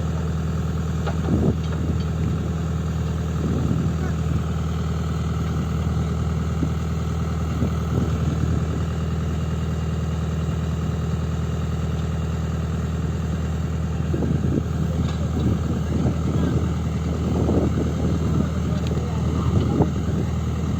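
Tata Hitachi Zaxis 120 excavator's diesel engine running steadily at idle, with scattered short knocks that come more often in the last few seconds.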